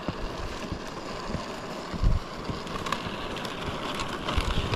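Steady wind rushing over the microphone above a low rumble of travel, with a louder low bump about two seconds in and another near the end.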